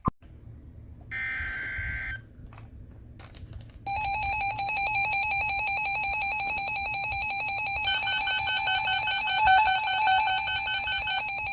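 Emergency alert tones heralding a severe thunderstorm warning. A one-second burst of tones comes about a second in. From about four seconds a steady, shrill alert tone sounds, joined by further higher tones from about eight to eleven seconds.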